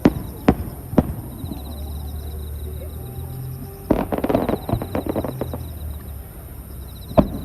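Aerial fireworks bursting: three sharp bangs about half a second apart, then a rapid cluster of crackling about four seconds in, and another bang near the end.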